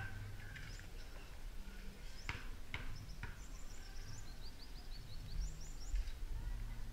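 A basketball bouncing three times on a concrete court, sharp knocks about half a second apart, followed by a quick run of short high chirps from a bird.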